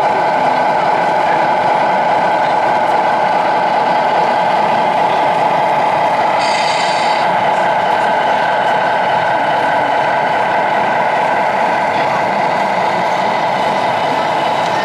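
Steady electronic diesel engine idle from a radio-controlled MAN truck's sound module, played through its small speaker, with a brief higher-pitched sound about six and a half seconds in.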